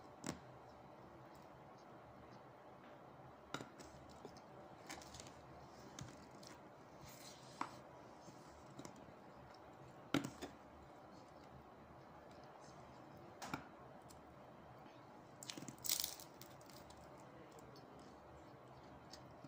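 Crisp fried samosa pastry being torn apart by hand and chewed: short, scattered crackles and crunches at irregular intervals over a quiet background, loudest about ten seconds in and in a quick cluster near sixteen seconds.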